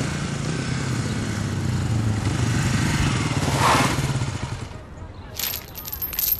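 An engine runs steadily with a low hum and fades away about four and a half seconds in, followed by a few sharp clicks and crackles.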